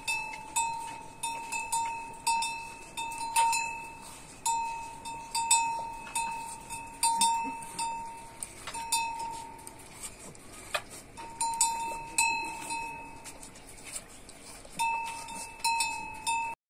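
A small metal bell rung in quick, uneven strikes, about two a second, each with a short ring. It stops twice for a moment.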